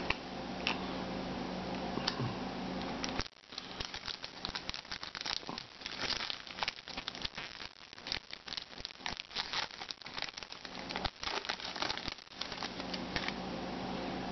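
Foil trading-card pack wrapper being torn open and crinkled by hand: a dense run of sharp crackles that starts about three seconds in and stops about two seconds before the end.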